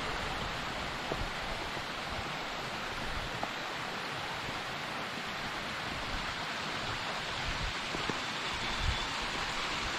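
Steady, even hiss of water outdoors, with a few faint knocks.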